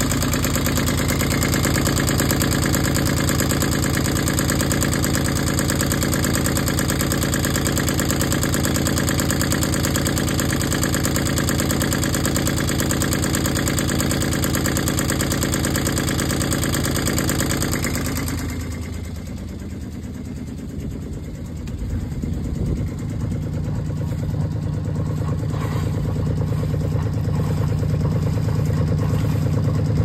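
Universal M25XP three-cylinder marine diesel running steadily, heard close up in its open engine compartment with a fast, even clatter; the owner considers these sounds bad. About eighteen seconds in the sound turns duller and lower as the engine is heard from over the side of the boat by the water.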